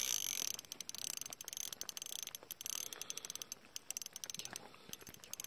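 Fishing reel clicking in a fast, uneven run of small ticks as a hooked pike is reeled in, easing off a little near the end.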